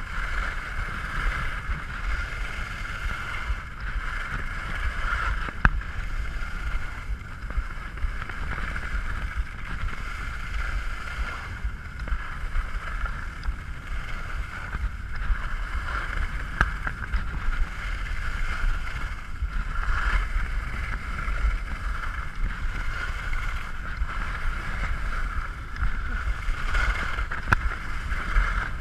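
Skis hissing and scraping steadily over packed, groomed snow on a downhill run, with wind rumbling on the action camera's microphone. A sharp click about six seconds in, and a few fainter ones later.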